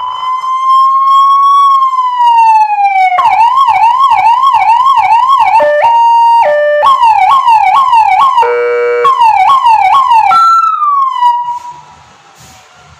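Electronic siren built into an emergency light bar, stepping through its tones: a slow rising-and-falling wail, a fast yelp sweeping about two and a half times a second, a two-tone hi-lo, a short buzzing horn blast, more yelp, and a final falling tone before it cuts off. Loud.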